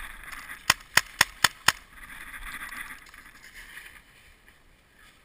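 Paintball marker firing five quick shots, about four a second, starting just under a second in, over a hiss that fades out after about three seconds.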